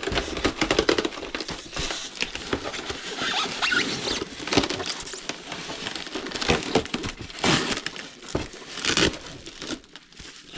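Styrofoam packaging squeaking and scraping in irregular strokes as foam pieces are worked out of a molded foam box, with some crinkling.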